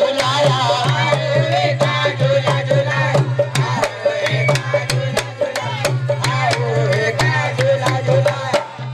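Amplified devotional qawwali music: a harmonium with hand-drum strokes keeping the beat, and a voice singing a drawn-out, ornamented melodic line over them.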